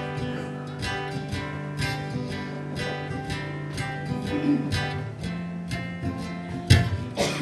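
Acoustic guitar strummed in a steady rhythm during an instrumental passage with no singing, with one harder strum near the end.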